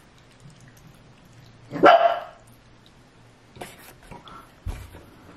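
A pet dog barks once, about two seconds in: a single short bark that rises in pitch.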